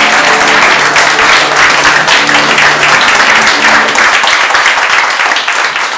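Crowd clapping, with music underneath playing a few held low notes in the first half; the clapping thins out near the end.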